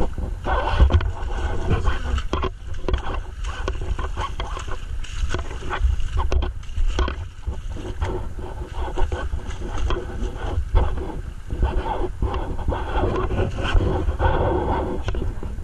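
Wind buffeting the microphone in a heavy, uneven rumble, mixed with water sloshing and splashing as someone wades through a shallow river, with a few sharp splashes.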